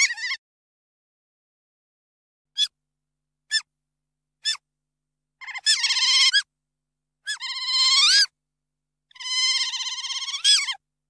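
Otter chirping: three short chirps about a second apart, then three longer high-pitched chirping calls of about a second each, each bending up in pitch near its end.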